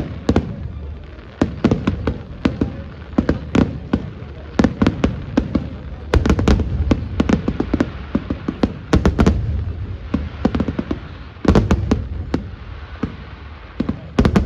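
Fireworks going off: many sharp bangs and pops in quick, irregular succession, growing denser in rapid clusters several times.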